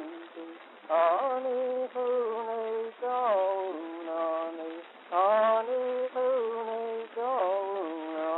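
A voice singing wordless, chant-like phrases with no drum beneath. Four phrases, each opening with an upward slide and then stepping down through held notes.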